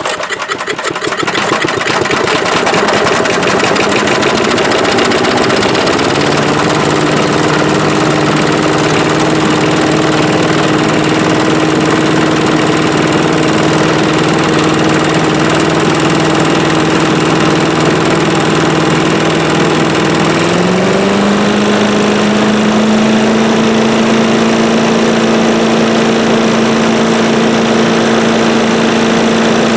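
5 hp Briggs & Stratton single-cylinder engine on a walk-behind leaf blower catching on a pull of the starter rope and running steadily, with the blower fan's rush of air; the engine speed steps up about six seconds in and again around twenty seconds in. It is the engine's first run after a rust-stuck valve was freed and the drop-in carburetor replaced.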